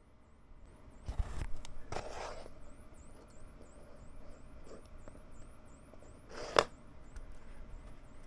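Small handling noises as tweezers move tiny wooden kit parts on a cutting mat: two brief scrapes about one and two seconds in, a few light clicks, and a sharper scrape past the middle, the loudest sound.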